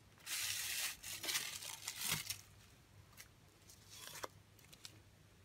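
Packaging being torn and crinkled by hand to unwrap a wooden incense holder. The rustling is loudest in the first two seconds, then thins to a few light clicks and rustles.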